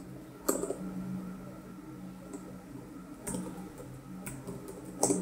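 A few isolated computer keyboard key presses, about four sharp clicks spread out with pauses between them, over a faint steady low hum.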